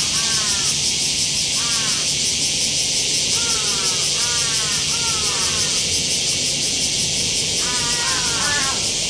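A crow cawing over and over in short series of harsh, falling calls, more densely near the end. Behind it runs a steady high drone of insects.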